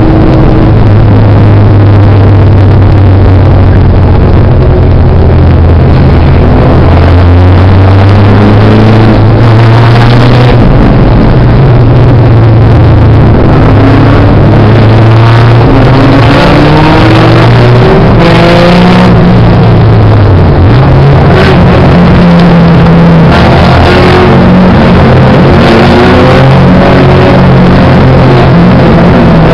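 Mini stock race car's engine heard from inside the cockpit under racing load, very loud, its pitch repeatedly rising and falling as it accelerates and eases off.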